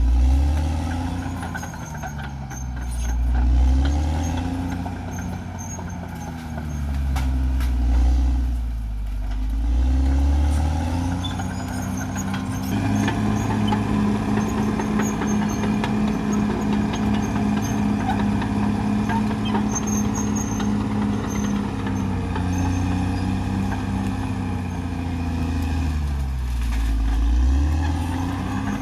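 Caterpillar D6R XL bulldozer's diesel engine working hard, its pitch falling and rising again three times over the first ten seconds, then holding steady before dipping once more near the end. Faint high-pitched squeaks run above it.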